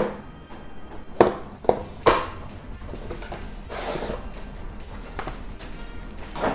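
Handling and opening of a cardboard figure box: a few sharp knocks and taps, then the rustle of cardboard and a plastic bag as the packed figure is pulled out.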